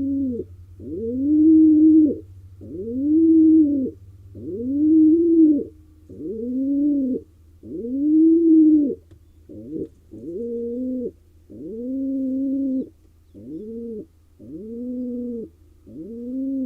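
Male pigeon courtship cooing: about a dozen deep coos in an unbroken series, roughly one every second and a bit, each rising then falling in pitch. A faint low hum runs underneath.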